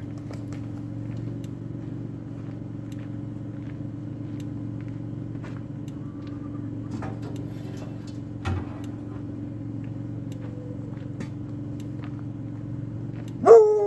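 Steady low engine-like hum with scattered light clicks. Near the end a dog starts howling, loud, its pitch sliding down.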